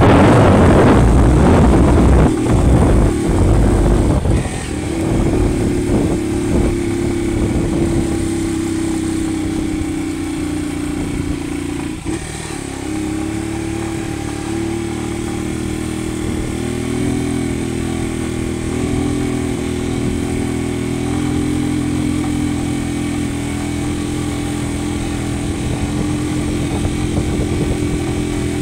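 Motorcycle engine running under way, heard from on the bike, with wind on the microphone loud for the first few seconds. The engine note dips briefly about twelve seconds in and then climbs and holds steady again.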